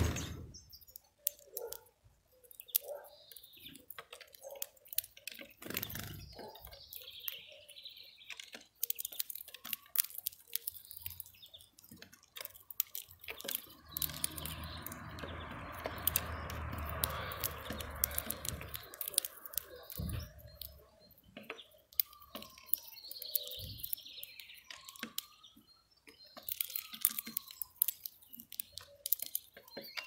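Small wild birds feeding at a feeder: frequent sharp clicks of beaks pecking at seed, with scattered faint chirps and a few short gliding calls near the end. Around the middle there is a rushing noise with a low rumble for about five seconds.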